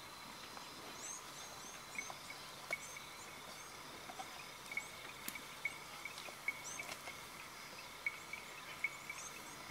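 Faint bush ambience: a high chirp repeating steadily two or three times a second, with short bursts of higher bird calls now and then.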